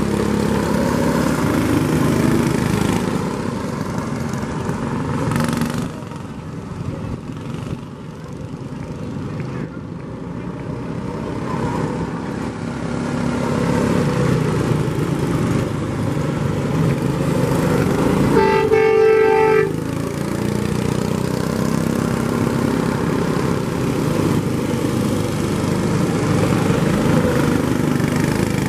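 Vehicle engines running as parade trucks pass, fading briefly and then building again. About two-thirds of the way through, a vehicle horn blows once for about a second.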